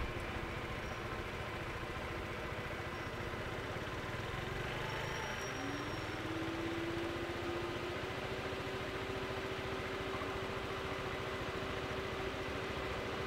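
Steady low engine hum from vehicles idling at a closed level crossing, with a humming tone that rises in pitch about five seconds in and then holds steady.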